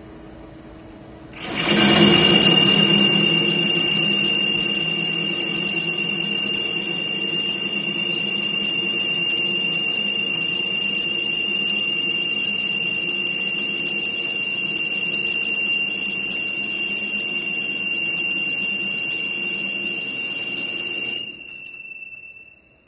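TCK50 slant-bed CNC lathe running: it starts suddenly about a second and a half in, runs steadily with a high whine over a lower hum, and stops shortly before the end, the whine trailing off briefly.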